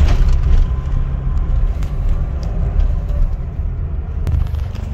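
Road and engine noise inside a moving car's cabin: a steady low rumble from an automatic car driving slowly in traffic.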